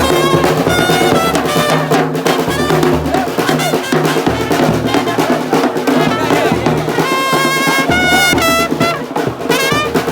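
Loud music with brass horn lines playing held notes over drums and a repeating bass line.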